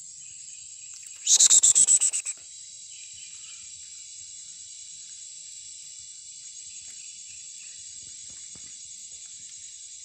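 Steady high-pitched drone of insects in the vegetation. About a second in, a loud, rapid series of about ten sharp chirping calls lasts about a second.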